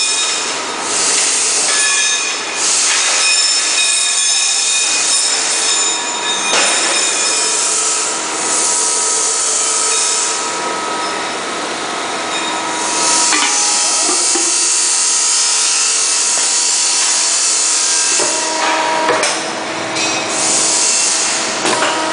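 Hydraulic forming machine working a stainless steel cylinder: its hydraulic power unit runs with a steady whine, while repeated surges of hissing come and go every few seconds.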